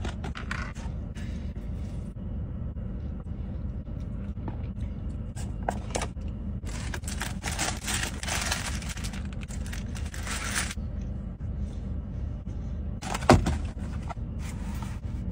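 Paper food wrapper rustling as it is unwrapped for about four seconds in the middle, with a few handling clicks, over a steady low hum inside a car. One sharp knock near the end.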